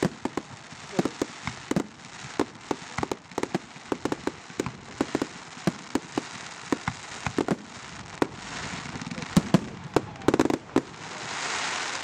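Aerial fireworks going off in quick, irregular succession: many sharp bangs and pops, the loudest few about nine to ten seconds in, then a swelling hiss near the end.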